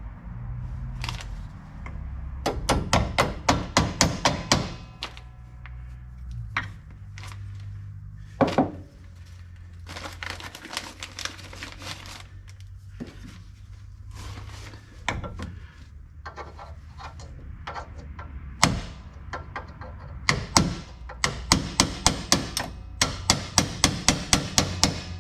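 Hammer blows driving a roll pin through a John Deere 7000 planter's closing-wheel mount: a quick run of sharp strikes at about five a second starting a couple of seconds in, single knocks and taps through the middle, then a longer fast run of strikes near the end.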